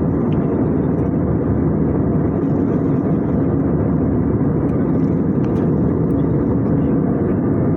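Steady cabin noise of a jet airliner in flight: the even, low rush of engines and airflow heard from inside the cabin.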